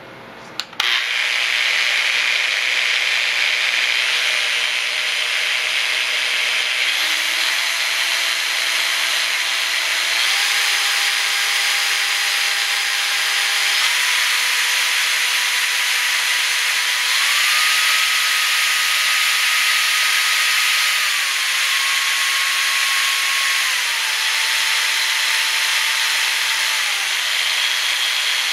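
A Bosch GP712VS (GPO 12 CE) 1250 W rotary polisher is switched on with a click about a second in and runs free with its backing pad spinning. Its motor whine steps up in pitch several times and then steps back down in stages near the end, as the variable speed is changed.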